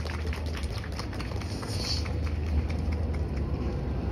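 Street ambience: a steady low rumble of traffic with scattered light clicks and taps, and a brief high-pitched sound about two seconds in.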